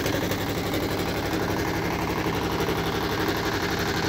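Small wooden fishing boat's engine running steadily under way, with a rapid, even chugging beat.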